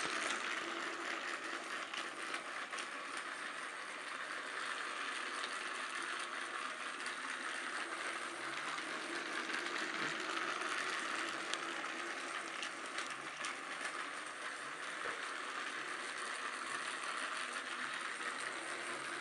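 Battery-powered Motorized Railway toy engine (Snowy Ryan) running on its track: a steady whir of the small geared motor with a few faint ticks from the wheels. The motor sounds almost like a Trackmaster Evolution engine.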